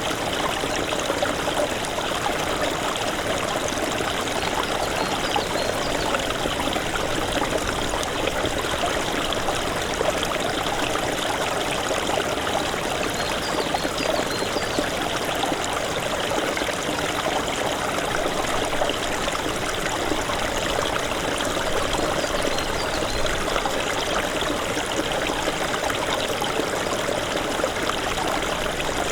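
Small stream of snowmelt water running, a steady trickling and rushing flow.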